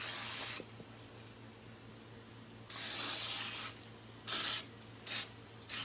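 Aerosol can of Pam cooking spray hissing in bursts. Two sprays of about a second each come at the start and about three seconds in, then three short spritzes near the end.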